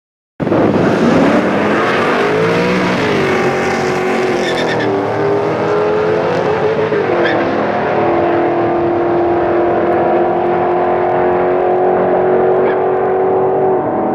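Holden Commodore ute's V8 and a second car at full throttle down a drag strip, starting abruptly. The engines rise in pitch and drop at upshifts about three and seven seconds in, then hold a steady high note as the cars draw away and the sound dulls.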